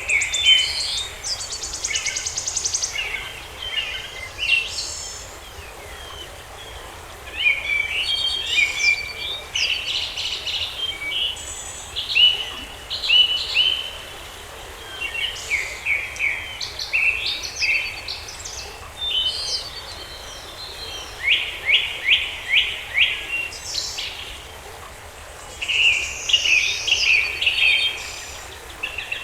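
Songbirds singing in short, rapid phrases of chirps and trills, with pauses between the phrases, over a faint steady background hiss.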